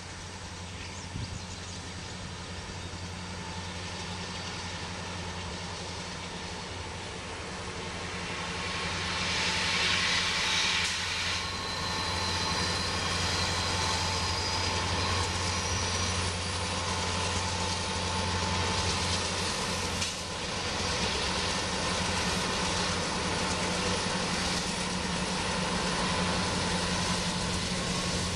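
Freight diesel locomotives, led by an EMD SD60 with a GE C44-9W behind it, working as they approach, with a steady low engine drone that grows louder for about ten seconds and then holds. A brief rush of high hiss comes about ten seconds in.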